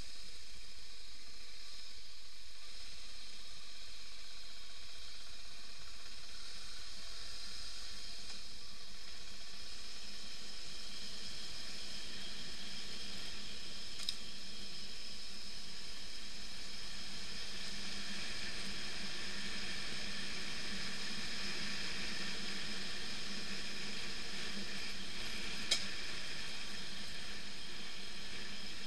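Motorcycle ride on a dirt track as heard through an action camera: a steady, muffled hiss with faint even tones under it, growing a little stronger in the second half. Two brief ticks, about halfway through and near the end.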